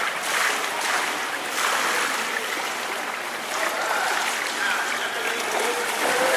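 Water splashing and churning from a swimmer pushing off the wall and swimming freestyle in an indoor pool, over a steady rushing hiss of pool noise.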